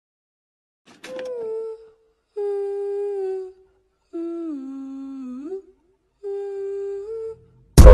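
A voice humming a slow, sad-sounding tune in four held phrases, the third dipping lower before gliding back up.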